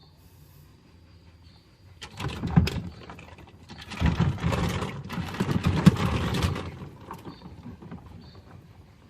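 Lego pieces rattling and clattering against each other inside a turning washing machine drum, in two spells: a short one about two seconds in and a longer one from about four seconds to nearly seven.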